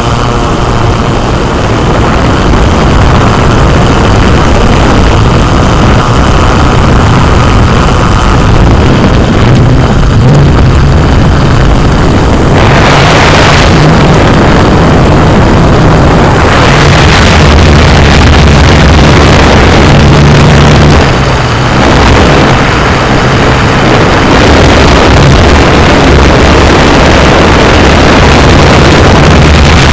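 Yuneec Typhoon Q500+ quadcopter's motors and propellers running in flight: a loud, steady whirring hum that shifts in pitch and texture a few times as the drone manoeuvres.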